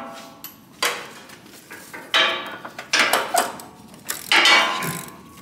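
Ratchet and socket clanking and clattering on metal in four short bursts with a slight ring, as a tight spark plug on a mower engine is worked loose.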